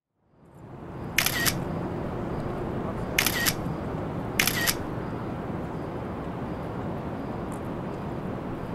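Smartphone camera shutter sound, three times, about a second or two apart, over steady background noise that fades in at the start.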